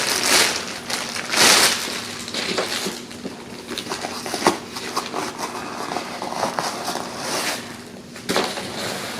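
Packaging from a new pair of boots rustling and crinkling as a boot is handled and unwrapped, loudest in the first two seconds, then softer rustles with scattered small clicks.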